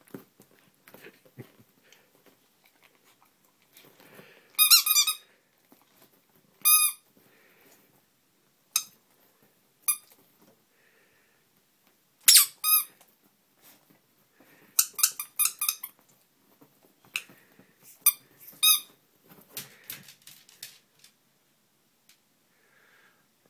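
Tiny rubber duck squeak toy squeaked again and again: short, high squeaks, singly and in quick runs of several.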